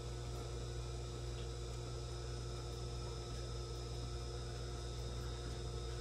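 A steady hum with a few faint held tones and no distinct events.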